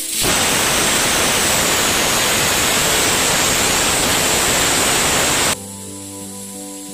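Pressure cooker whistle: a loud hiss of steam venting through the weight valve, the first whistle showing the cooker has come up to pressure with the cluster beans boiling inside. It lasts about five seconds and cuts off suddenly.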